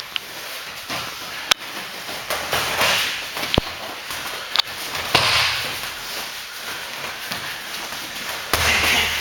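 Kickboxing sparring in boxing gloves and shin guards: several sharp smacks of punches and kicks landing, a second or two apart, over the shuffle of feet on the mat.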